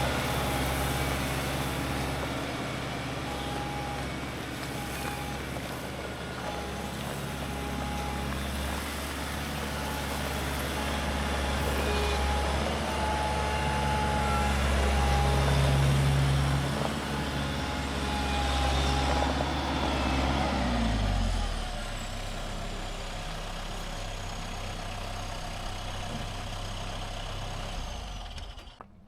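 Farm tractor engine running while spreading gravel on an icy yard with its front bucket, with a high tone sounding on and off over it. About two-thirds of the way through, the engine winds down to a low idle.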